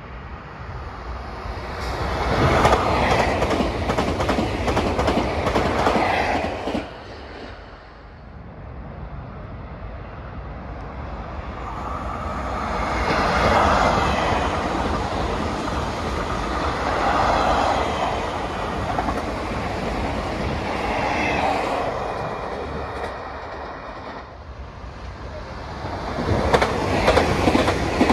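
Double-deck electric trains passing one after another. The sound swells about two seconds in and drops off sharply near seven seconds. It builds again to a peak around thirteen seconds and swells once more near the end.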